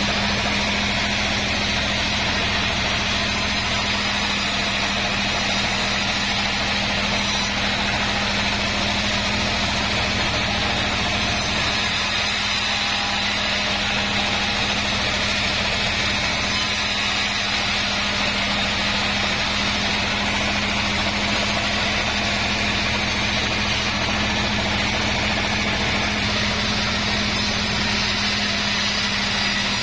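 Sawmill machinery running steadily with a constant hum that does not change.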